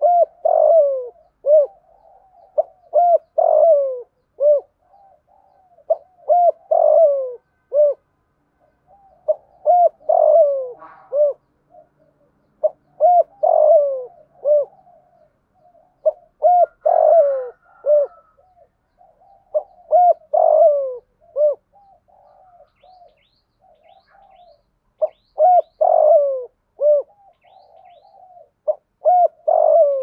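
Spotted dove cooing in repeated multi-note phrases, one every three to four seconds, each note a falling glide, with a short pause a little past the middle. Faint high chirps of small birds come in during the second half.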